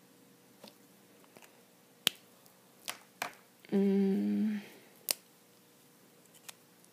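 Several sharp plastic clicks, spaced irregularly, from Copic alcohol markers being capped, uncapped and knocked against one another as they are picked up and put down. About halfway through comes the loudest sound, a short two-part hum from a woman's voice.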